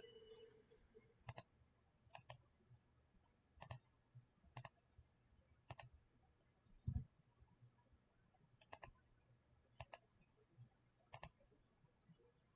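Faint, scattered clicks of someone working at a computer, about eight spread irregularly over the stretch. One dull, low thump about seven seconds in is the loudest sound.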